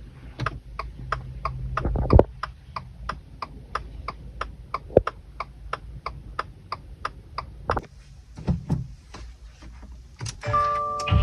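Subaru WRX turn-signal indicator clicking steadily, about three clicks a second, stopping a little past three-quarters of the way through, with a couple of louder thumps among the clicks and a few scattered knocks after them.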